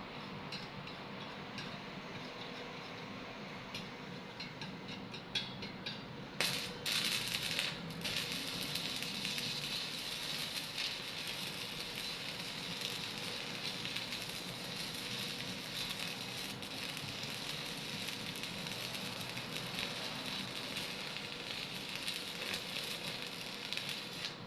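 Electric welding arc crackling and sizzling. Short sputtering crackles come first, then the arc catches about six or seven seconds in and sizzles steadily as a bead is laid, cutting off suddenly at the end.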